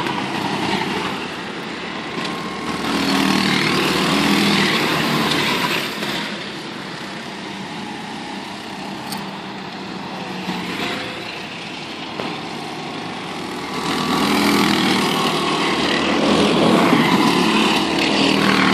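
Several go-kart engines running around an outdoor circuit, getting louder and fading as karts pass by. They are loudest about three to six seconds in and again from about fourteen seconds on.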